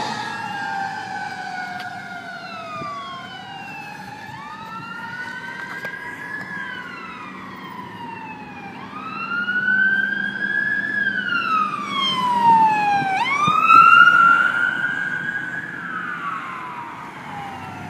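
Fire department emergency vehicle sirens wailing, more than one at once, their pitches rising and falling over each other. They grow louder past the middle, with a quick run of fast sweeps about two-thirds of the way through, then fade toward the end.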